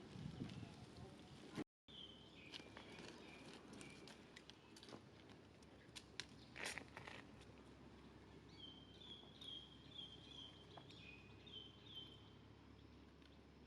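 Faint outdoor ambience of scattered rustles and light clicks, with a run of about seven short, high chirps a little past the middle.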